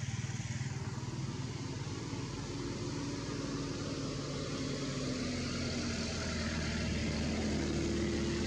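A motor vehicle engine running, a low steady hum whose pitch drifts slowly up and down, growing a little louder toward the end.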